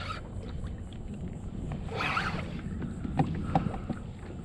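Steady low wind and water noise around a kayak, with a brief zipping burst about two seconds in and a few light clicks and knocks after it.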